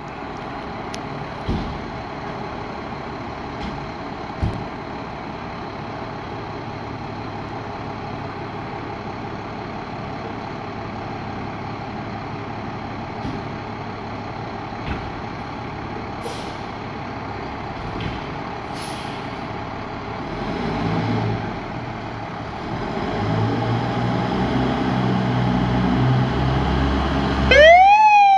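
Fire trucks' diesel engines idling in the station bays, then running louder and deeper as the trucks pull out. Two short hisses of air brakes releasing come midway. About a second before the end a fire-truck siren starts, sweeping sharply up in pitch and then beginning to fall.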